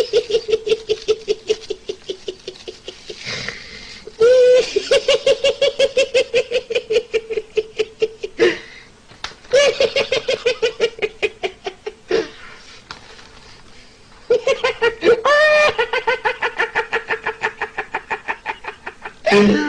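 A high-pitched staccato laugh, a fast run of "ha-ha-ha" pulses at about six a second, in three long bouts with short pauses between them, each bout starting with a rising whoop.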